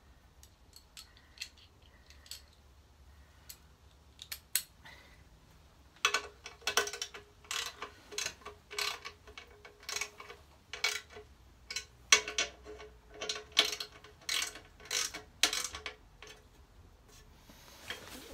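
Socket ratchet clicking as bolts on a motorcycle engine guard are run in and nipped up: a few scattered clicks at first, then quick runs of rapid ratcheting strokes from about a third of the way in, with a short break midway, stopping shortly before the end.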